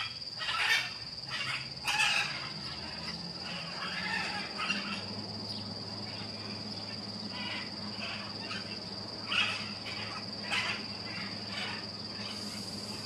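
Blue-and-yellow macaws giving harsh squawks, a quick run of calls in the first few seconds, then single calls now and then, over a steady high-pitched whine.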